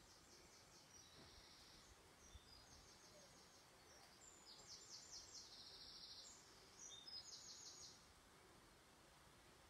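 Faint songbird singing: several short phrases of quick repeated high notes, the loudest a little past the middle, over quiet outdoor background noise.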